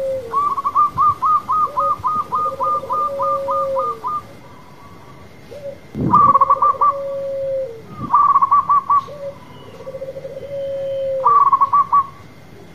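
Zebra dove (perkutut) cooing. It repeats phrases of a short opening note, a rapid stuttering run and a long held note that drops away at the end, three full phrases in all. Over them run quick higher-pitched notes, about four a second in one long series at the start and in three short bursts later, with two low thumps near the middle.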